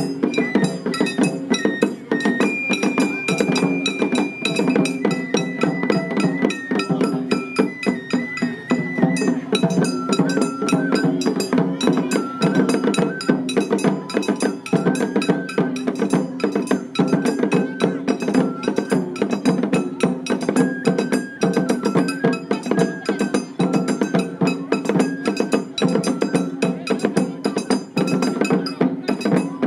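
Children's festival hayashi: taiko drums beaten in a fast, steady rhythm, with metallic clinks of a hand gong and a high melody of held notes from a bamboo flute.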